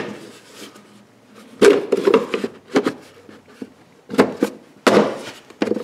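Plastic battery compartment cover of a 2013 Chevy Malibu being pushed and knocked down into its housing. There is a sharp click at the start, then four short bursts of plastic knocking and rubbing as it is worked into place.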